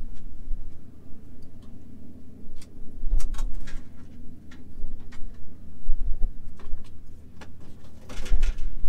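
Scattered light metallic clicks and taps of hand tools, a wrench being worked on the tractor's injection pump fittings. Low gusts of wind buffet the microphone about three seconds in, again around six seconds, and near the end.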